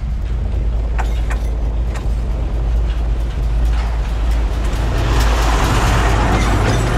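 A D1 diesel multiple unit approaching along the track: a steady low rumble, a few sharp clicks from the rails about a second in, and rolling noise that swells over the last few seconds as the train draws near.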